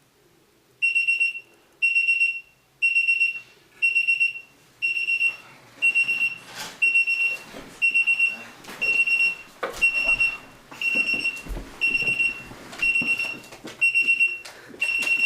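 Alarm clock on wheels beeping: one high-pitched electronic beep about once a second, each lasting a little over half a second, starting just under a second in. From about six seconds in, knocks and rustling sound under the beeps.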